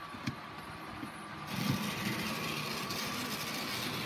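A short click about a quarter second in, then from about a second and a half in a steady whirring hum from an N scale model train under power from its throttle, as the locomotive is tried in reverse, a direction it will not run in.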